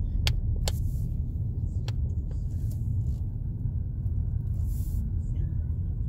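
Steady low rumble of a car driving, heard from inside the cabin, with a few light clicks in the first two seconds.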